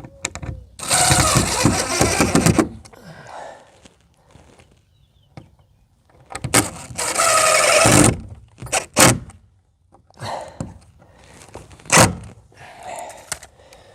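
Power drill with a pilot bit running in two bursts of about two seconds each, drilling pilot holes for the awning's mounting hardware, with a few sharp knocks in between.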